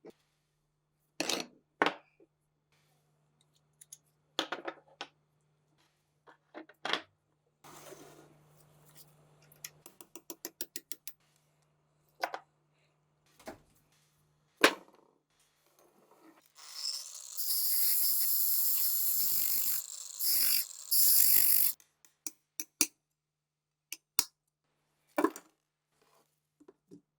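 Metal gun parts being handled, with separate knocks and clinks and a quick run of clicks about ten seconds in. Later comes about five seconds of loud, steady hissing noise in two spells, the loudest sound.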